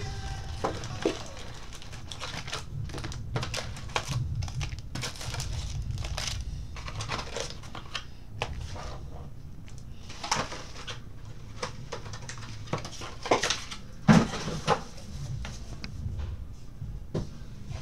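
Foil trading-card packs from a 2013 Bowman Chrome box being handled and stacked on a table: scattered crinkles and light taps, with one louder knock about fourteen seconds in, over a low steady hum.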